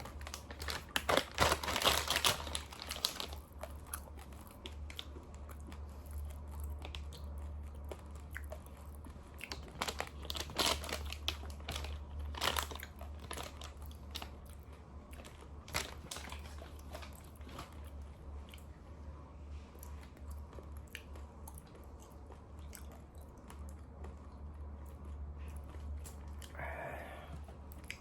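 Raw long-grain rice crunched between the teeth close to the microphone: dense crunching in the first few seconds, then slower, scattered crunches, over a steady low hum.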